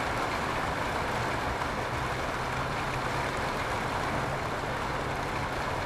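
Steady background rumble with a low, even hum and no distinct knocks or clicks.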